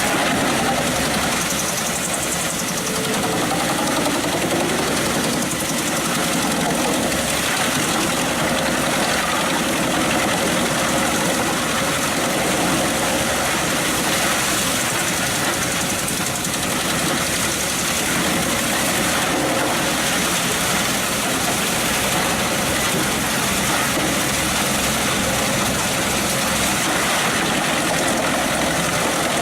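Pezzolato PTH 900 M drum wood chipper running steadily, driven by its Scania DC09 five-cylinder diesel engine, with a loud, even mechanical noise.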